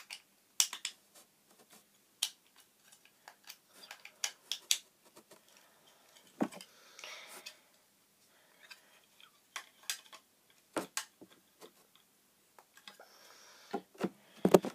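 Handling noise close to the microphone: irregular small clicks and taps, with a few brief rustles in between.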